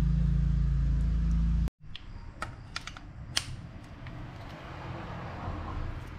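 A steady low mechanical hum cuts off abruptly about two seconds in. Then come a few light metallic clicks and taps as a wrench works the fuel shutoff solenoid loose from the bottom of a riding mower's carburetor bowl.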